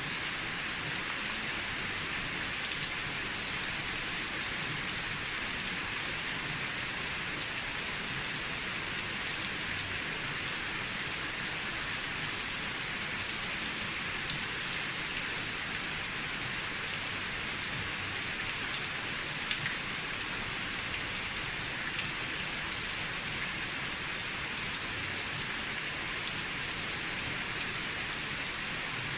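Steady rain falling on an old moss-covered roof, an even hiss with scattered individual drops ticking.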